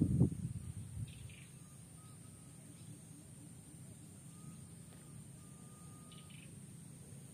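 Quiet outdoor ambience with a steady low background noise and faint short bird chirps, about a second in and again near the end. A brief low thumping at the very start is the loudest thing.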